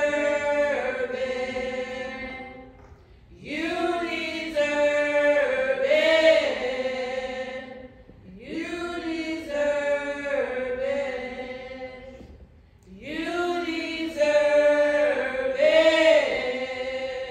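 Slow gospel worship singing: four long, drawn-out sung lines with short pauses between them.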